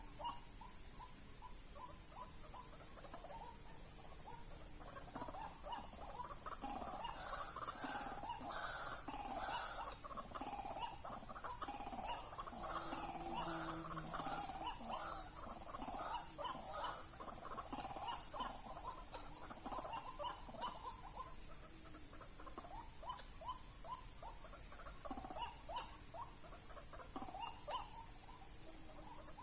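White-breasted waterhens calling: a long run of short repeated notes, densest in the first half, over a steady high-pitched drone.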